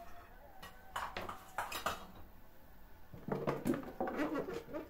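Kitchen clatter: a quick string of short knocks and clinks in the first two seconds, then a busier patch of clatter, as vegetables and containers are handled while packing pickles.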